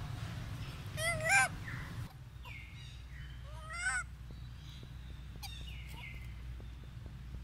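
Macaque calls: two short, wavering, high-pitched cries about two and a half seconds apart, with a few thin falling whistles between and after them.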